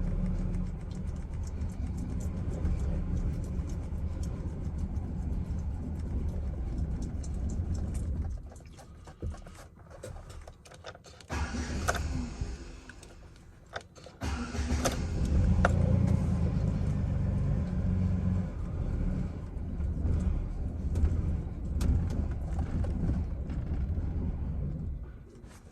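Chevrolet Silverado pickup's engine on a nearly dead battery: a steady low sound that stops about eight seconds in, a short burst around twelve seconds, then another long stretch from about fourteen seconds, loudest soon after it starts, that dies away near the end.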